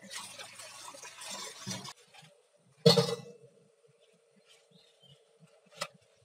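Tap water running into a carbon steel wok in a stainless sink, stopping after about two seconds. About three seconds in comes one sharp knock, followed by a faint steady hum and a lighter knock near the end.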